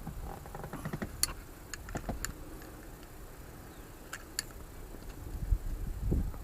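Scattered sharp clicks and a few dull knocks from handling the parts of a seatbelt retractor, with the heaviest knocks near the end.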